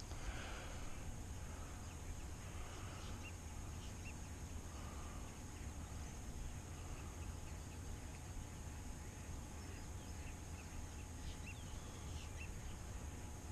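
Outdoor marsh ambience: scattered short bird chirps over a steady high insect drone and a low rumble.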